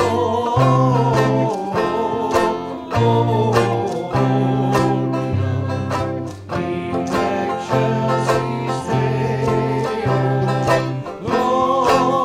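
Music with plucked strings, guitar-like, over a bass line that changes note about once a second.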